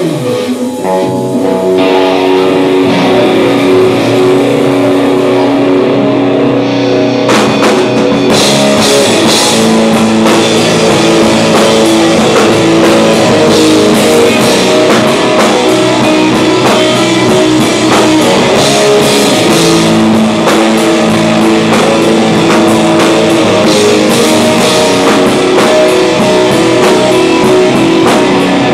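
Live rock band playing loud: electric guitars holding ringing notes, with the drum kit and cymbals coming in about seven seconds in.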